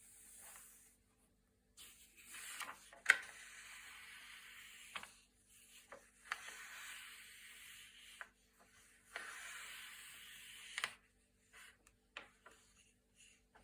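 Thick glossy magazine-style pages being turned one after another. Each turn is a papery swish as the sheet slides and lifts, ending in a sharp snap as it flips over; the loudest snap comes about three seconds in. Near the end there are only a few light ticks.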